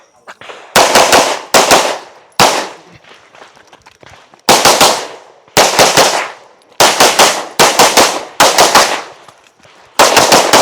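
Rapid pistol fire from a shooter running a USPSA course of fire. Quick pairs and short strings of sharp shots come with brief pauses between them, about a dozen clusters in all.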